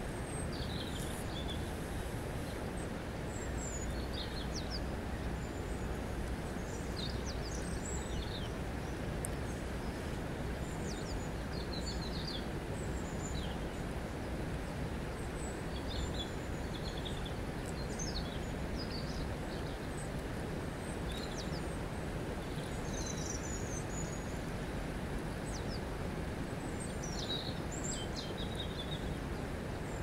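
River water running steadily over a stony bed, a constant even rush. Small birds chirp over it in short, high calls scattered through the whole stretch.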